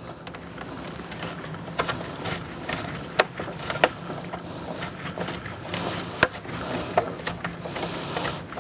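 Scattered sharp metallic clicks, knocks and light rattling of hand tools and loose parts being handled at a car's stripped front end, over a steady low hum.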